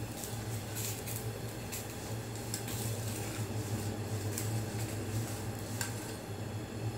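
Metal spatula scraping and clinking against an iron tawa as a paratha is lifted, flipped and pressed, a few sharp clicks spread across several seconds. A steady low hum runs underneath.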